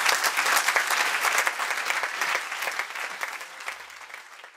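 Audience applauding, the clapping fading away steadily over a few seconds.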